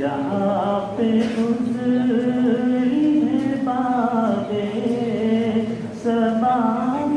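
A solo male voice singing an Urdu naat unaccompanied into a microphone, in long held, ornamented notes that rise and fall, with a short break for breath about six seconds in.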